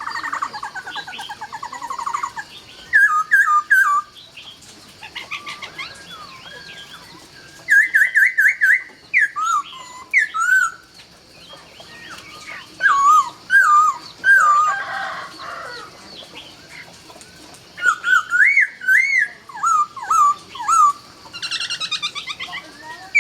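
Laughingthrush (khướu) singing: loud, varied whistled phrases of notes that slide up and down, with fast trills, broken by short pauses. Fainter high, thin notes come in between.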